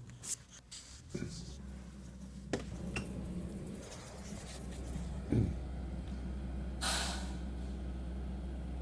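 Heavy road-repair equipment running, its engine a low steady hum that sets in about a second in, with scattered knocks and clunks. A heavier thump comes a little past five seconds in, and a short hiss follows about a second and a half later.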